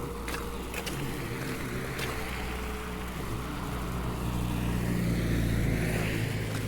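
A road vehicle passing: a steady engine drone grows louder to a peak about five seconds in, with tyre hiss on the road.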